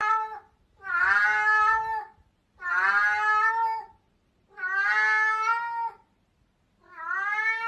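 A cat meowing over and over: a short meow at the start, then long, drawn-out meows of about a second each, one every two seconds or so, each holding a fairly steady pitch.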